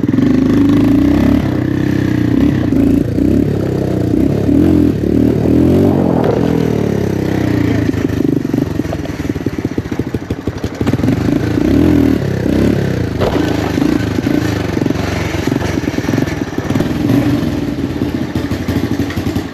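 Honda Big Red 250 three-wheeler's air-cooled single-cylinder four-stroke engine running as it is ridden, the revs rising and falling with the throttle.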